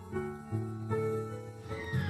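Instrumental music: held chords over a low bass line, changing every half second or so.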